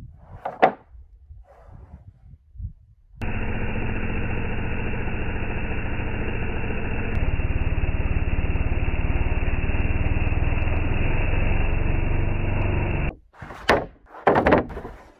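Chainsaw on a Logosol F2 chainsaw mill running under load as it rips a board along a log. It starts abruptly about three seconds in, gets louder about halfway through, and cuts off shortly before the end. Before and after it come a few sharp wooden knocks of sawn boards being stacked.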